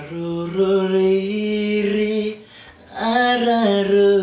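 A man singing a lullaby unaccompanied, in long drawn-out notes, with a short breath about two and a half seconds in.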